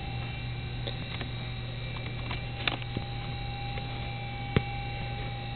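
Steady electrical mains hum, with a few faint, scattered clicks; the two clearest come about two and a half and four and a half seconds in.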